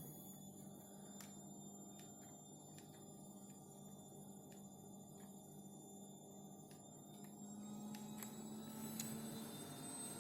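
Low steady electrical hum with a few faint clicks, the sharpest about nine seconds in.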